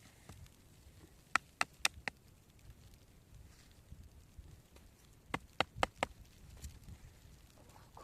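Two quick runs of four sharp knocks each, about four seconds apart, over faint background noise.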